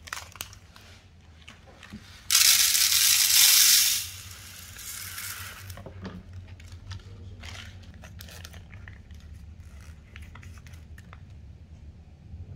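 Scissors snip a plastic food pouch, then dry uncooked rice pours into an aluminium foil tray: a loud hiss of grains for about two seconds that tails off. Light crinkling of plastic packaging follows.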